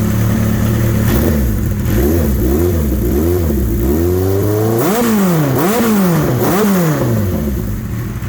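1983 Suzuki GS1100E's inline-four engine revved from idle in a series of about six quick throttle blips, the later ones climbing higher, then settling back to idle near the end.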